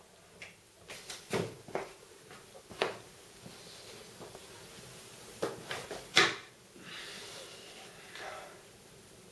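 Footsteps on a wooden floor and the knocks and rustles of a man sitting down and handling a leather pouch and a paintbrush at a wooden table. The knocks are separate and uneven, with the sharpest about six seconds in, followed by a soft rustle.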